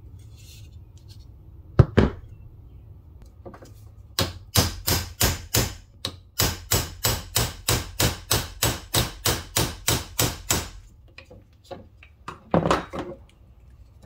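A hammer striking a steel punch to drive the pin out of the multitool's wooden handle: two sharp blows, then a steady run of about twenty even taps at roughly three a second, then a few weaker knocks and a heavier one near the end.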